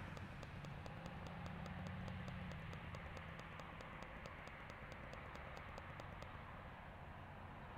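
Faint, rapid, even ticking, about four ticks a second, over a low steady hum; the ticking stops near the end.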